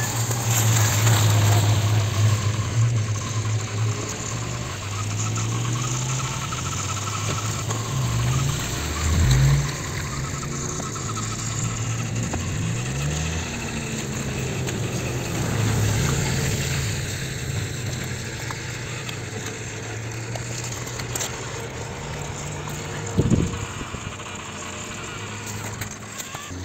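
Motor of a homemade radio-controlled toy tractor running: a low drone that shifts up and down in pitch as it drives. A brief sharp knock near the end.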